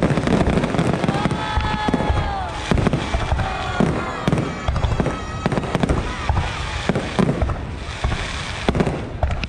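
Fireworks display: many shells bursting one after another in a continuous run of bangs and crackles, with a few whistling tones among them.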